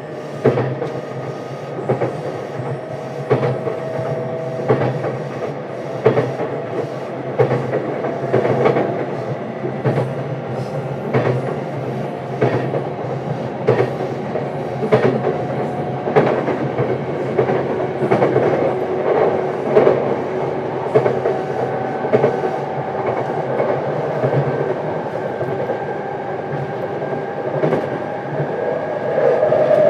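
JR East E233-7000 series electric commuter train running, heard from inside a motor car: wheels clicking over rail joints about every second and a half under a steady hum and whine from the running gear and traction motors, with a higher tone rising slowly in the second half.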